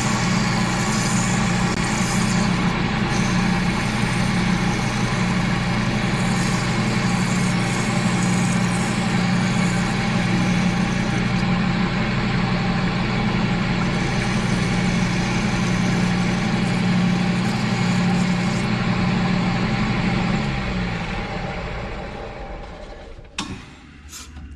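An old Craftsman drill press running steadily with a 120-grit flap sander spinning in its chuck, polishing the inside bore of a steel magnetic base. About 20 seconds in it is switched off and spins down, falling in pitch, and a couple of clicks follow near the end.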